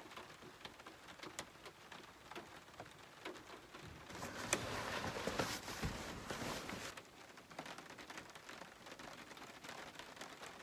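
Rain pattering on the truck camper's roof, with faint scattered drops ticking throughout. From about four to seven seconds in, a louder rustle of bedding as a blanket is pulled up and over.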